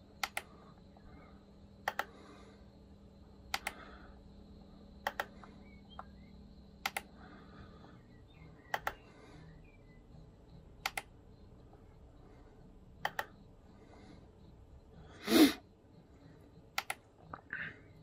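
Clicks from the mouse buttons of a keyboard with a built-in mouse, mostly in quick pairs about every two seconds. One louder, longer burst of noise comes about three-quarters of the way through.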